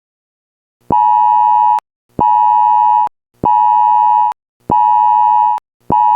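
Electronic emergency alert tone beeping five times, about once every 1.25 s. Each beep is a steady tone near 1 kHz lasting just under a second; the fifth is still sounding at the end.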